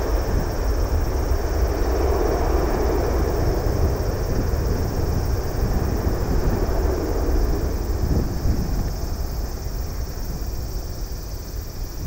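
Jet airliner's engines rumbling as it rolls out along the runway after touchdown, the noise fading gradually over the last few seconds.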